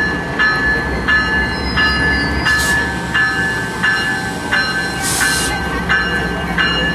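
Amtrak P42DC diesel locomotive creeping forward with its bell ringing steadily, about three strikes every two seconds, over the low rumble of its 16-cylinder diesel engine. Two short hisses sound about two and a half and five seconds in.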